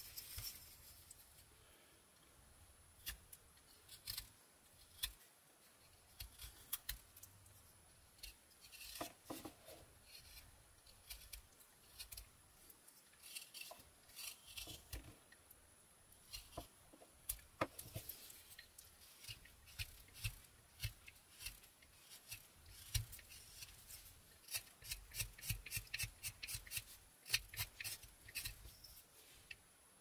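Mora 122 carving knife slicing small shavings off a basswood block: a faint series of short, crisp cuts, coming in a quick run of strokes near the end.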